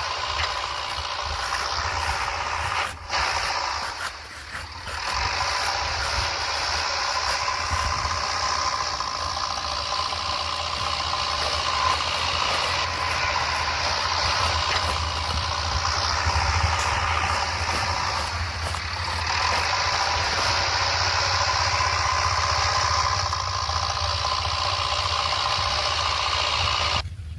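JCB backhoe engine running steadily while digging, a continuous drone that dips briefly twice a few seconds in.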